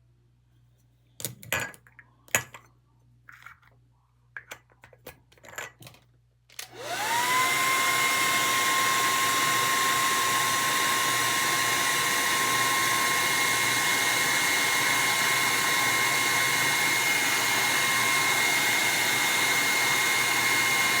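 A few light clicks and knocks of handling, then a hair dryer switched on about seven seconds in: its motor whine rises quickly to a steady pitch over the rush of air and keeps running evenly.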